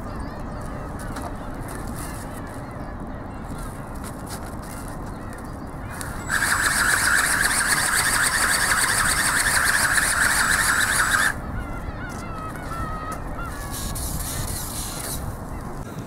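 Steady wind noise, then from about six seconds in the ornithopter's Turnigy 2211 brushless motor and gear drive run loudly with a high whir for about five seconds, flapping the articulated wings, and cut off sharply.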